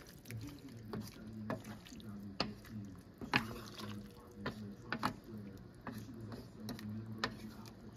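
A pot of chicken curry with cabbage, carrots and potatoes simmering faintly, the broth bubbling with scattered soft pops.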